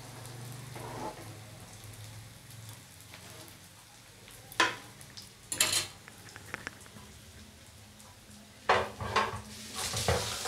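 Vegetable chops shallow-frying in oil in a frying pan with a low sizzle. Several sharp clinks of metal utensils come about halfway through and again near the end, as a spatula and a small bowl are handled and set down.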